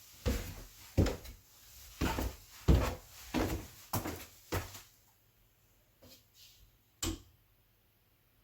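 Footsteps across a floor, about one every 0.6 s for some five seconds, followed a couple of seconds later by a single sharp click, the light switch being flipped.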